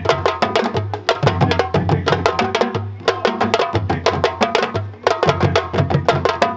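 West African drumming music: dense, rapid, sharp drum strokes over a low repeating bass pattern, with a short break in the beat about every two seconds.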